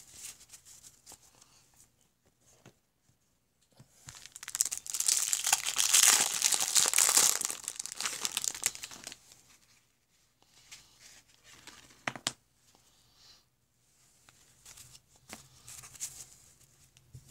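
Wrapper of a 1989 Topps baseball card pack being torn open and crinkled, a few seconds of loud tearing and crumpling in the middle. Then a single sharp tap and light rustling of cards.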